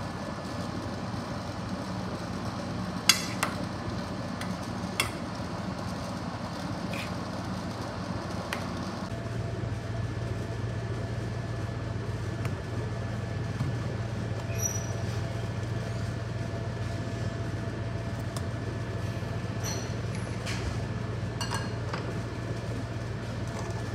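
Steady mechanical hum of a kitchen appliance, with a few sharp knocks of cookware or utensils; about nine seconds in, a deeper hum sets in.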